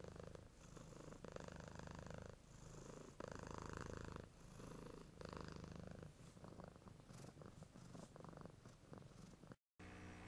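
A cat purring faintly in roughly one-second pulses, one per breath in and out; the purring weakens and cuts off near the end, leaving a low hum.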